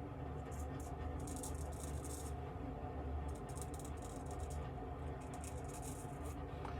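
CV Heljestrand 4/8 straight razor scraping through lathered stubble in several short strokes, each a fine crackling rasp, over a steady low hum.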